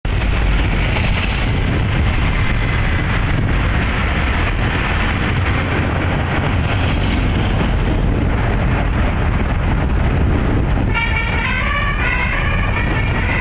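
Steady rumble of a bus and road traffic. About eleven seconds in, a Basuri telolet multi-tone air horn starts playing a melody of quick, stepping notes.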